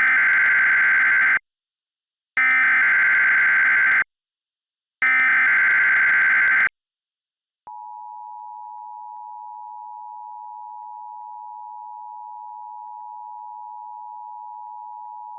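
Simulated Emergency Alert System tones: three short bursts of the SAME digital header, each about a second and a half, then the steady two-note EAS attention signal, held about eight seconds and quieter than the bursts. The header bursts carry the coded alert, and the attention tone announces that an emergency message is about to be read.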